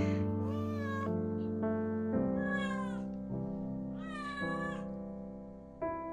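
A young deaf orange tabby kitten meows three times, each call rising then falling; the later meows come as it squats in the litter box, where it habitually cries while relieving itself. Soft background music plays underneath.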